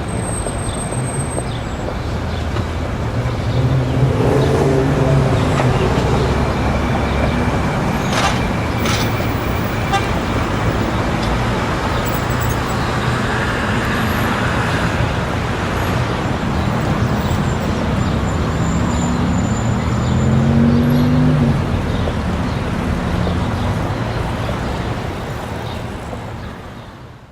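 City street traffic: a steady wash of road noise with vehicles passing by, their engines rising and falling, and a car horn tooting about a third of the way in. The sound fades out at the end.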